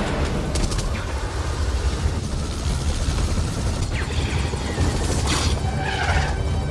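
Helicopter in flight, its rotor thumping low and steady under its engine, as mixed in an action film's soundtrack. A brief rush of noise cuts across it about five seconds in.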